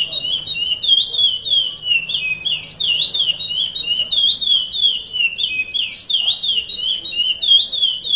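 A male curió (chestnut-bellied seed finch) sings the Paracambi 'rompe nuvem' song type. It is a continuous, unbroken stream of quick, high whistled notes that sweep up and down.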